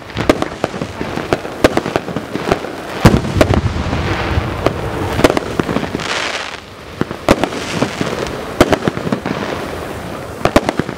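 DunPai Morning Glory hand-held spark firework burning: a continuous fizzing hiss that swells and eases several times, broken by many sharp, irregular crackling pops.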